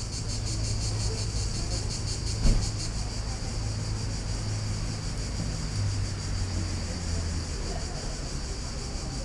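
Cicadas singing steadily: a high, rapidly pulsing shrill, over a low rumble, with a single sharp knock about two and a half seconds in.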